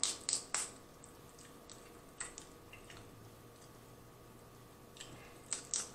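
Boiled crawfish being cracked and peeled by hand: sharp, wet shell clicks and crackles in small clusters. About three come in the first second, two more around two seconds in, and a few near the end.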